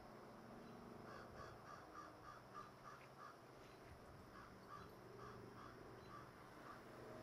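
Faint bird calls: a quick series of short repeated notes that begins about a second in and slows toward the end.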